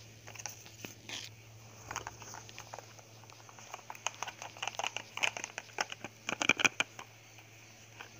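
Handling noise from a phone camera being moved about close up: irregular clicks and rustles, sparse at first and crowding together in the second half, ending in a sharp knock, over a steady low hum.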